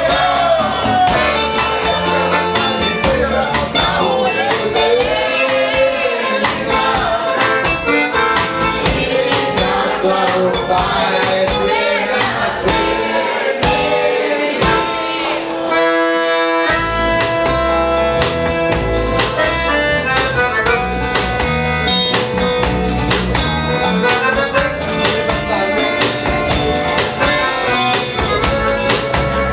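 Live band music led by a chromatic button accordion over a drum kit and guitar. About sixteen seconds in, the drums and low end drop out for about a second while the accordion holds on, then the band comes back in.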